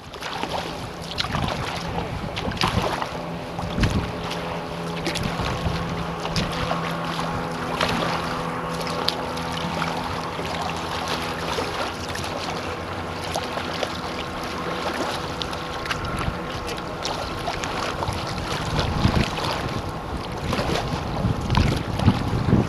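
Wind buffeting the microphone over choppy water lapping and splashing around a kayak. Under it, a boat engine hums steadily through the first half and fades out about halfway through.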